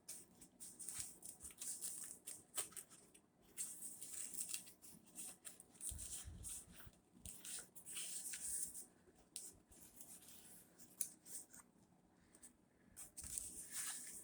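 Faint, irregular rustling and crinkling of packaging being handled, with small clicks and short pauses between the rustles.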